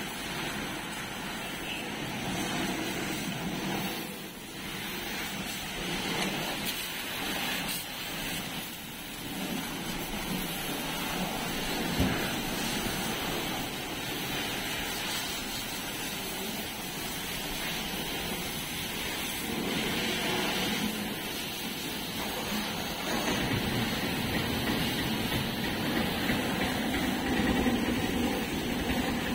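High-pressure water jet from a pressure-washer hose spraying onto the steel bucket and arm of a JCB backhoe loader and the wet concrete. It makes a steady hiss that swells and dips as the jet moves over the machine.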